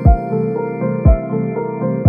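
Instrumental background music: held melodic notes over a deep beat that strikes about once a second.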